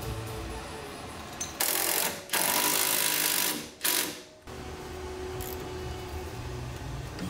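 A power tool run in three loud bursts, the middle one about a second and a half long, over background music.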